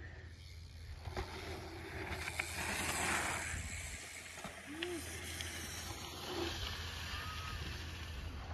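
A BMX bike riding through packed-dirt jumps, with wind rumbling on the microphone. A swell of rushing noise comes about two to three seconds in, with a few faint clicks around it.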